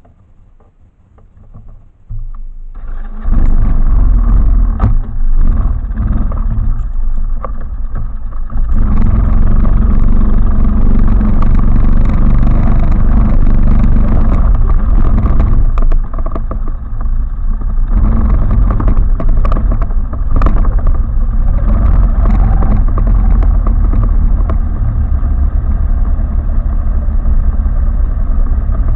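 A 250 cc quad's engine starts up about two seconds in and then runs loud, louder for a stretch in the middle and steady toward the end.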